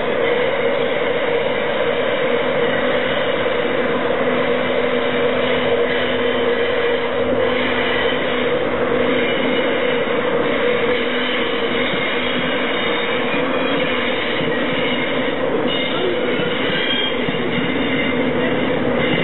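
Class 91 electric locomotive noisily departing with its InterCity 225 train, then its Mk4 coaches rolling past. Several steady tones sit over a continuous rumble of running noise, loud and even.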